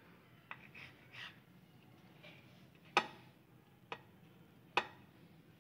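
Kitchen knife cutting slices of white bread on a ceramic plate: soft scraping as the blade goes through the bread, and four sharp clicks of the blade on the plate, the loudest about three seconds in.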